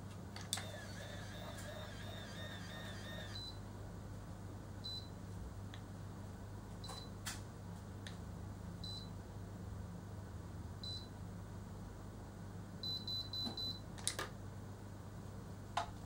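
Automatic rotating hair curler working a lock of hair: a click and a brief warbling whir as it winds the hair in, then single short beeps every couple of seconds while the curl sets. Near the end a quick run of four beeps signals that the curl is ready, followed by clicks as the curler is opened and released. A steady low hum runs underneath.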